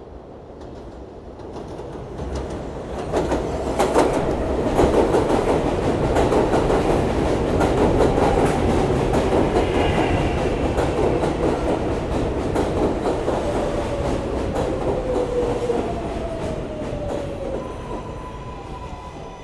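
R143 subway train arriving at an elevated station, wheels clacking over the rail joints as it runs in, with a brief high wheel squeal about halfway. Near the end the traction-motor whine falls in pitch as the train brakes to a stop.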